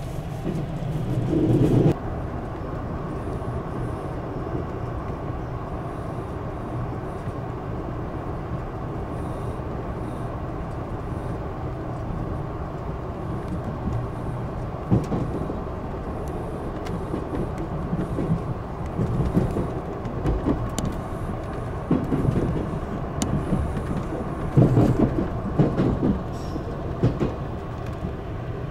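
A train running along the line: a steady rumbling run noise with a few louder bumps in the second half.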